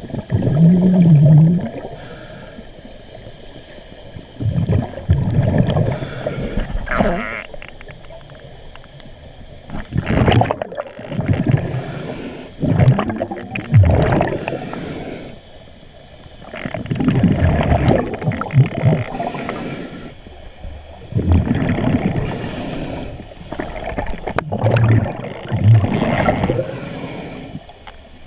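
Scuba diver breathing through a regulator underwater: the exhaled bubbles rumble and gurgle out in bursts every four to five seconds, with quieter stretches between breaths.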